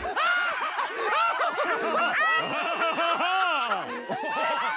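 Several people laughing at once, their laughs overlapping in rising and falling peals.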